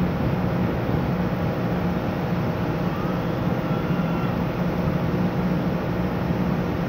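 Tri-Rail diesel locomotive idling while stopped at a station platform: a steady, low engine hum that does not change.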